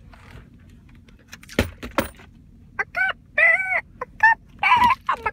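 Handheld rubber squeeze toy squeaked about six times in quick succession, high honking squeaks of which some are held for a moment. Two sharp clicks come before it, about a second and a half in.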